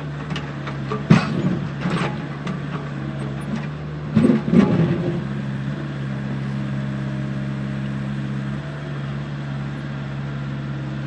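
Steady electric motor hum from radio-controlled model machinery working a load of soil. Sharp knocks come about one and two seconds in, and a louder cluster of knocks and scraping about four seconds in.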